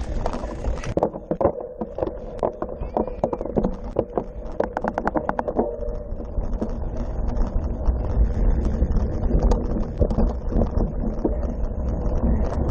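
Cyclocross bike rattling over bumpy grass: a string of quick knocks and clicks, densest in the first half, with a fast even run of ticks about five seconds in, over a steady low wind rumble on the bike-mounted camera.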